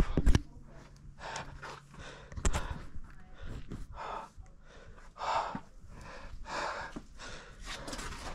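A person breathing hard from climbing exertion, with short, gasping breaths about once a second.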